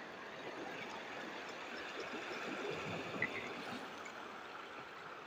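Small sea waves washing and lapping against shoreline rocks, a steady wash of water.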